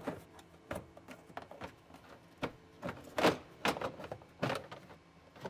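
Hard plastic clicks and knocks as the Polaris RZR Pro R's plastic center console is worked loose and lifted out: about a dozen separate knocks, irregularly spaced, the loudest a little past the middle.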